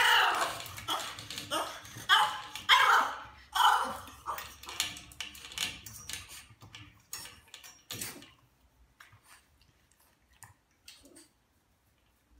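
French bulldog whining and yelping in a run of high, falling calls over the first four seconds, jealous and demanding attention. Then come quieter scattered clicks and taps, with a sharper click about eight seconds in.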